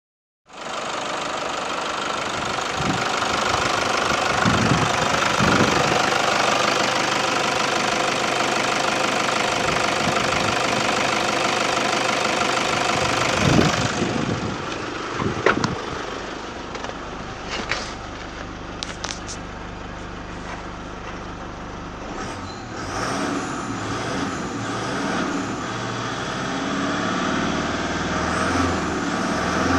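2005 Toyota Hilux's 3.0-litre four-cylinder turbo diesel running, heard close from the open engine bay. About halfway the sound drops, with a few sharp knocks. Near the end the engine is revved to around 2,000 rpm and the sound rises.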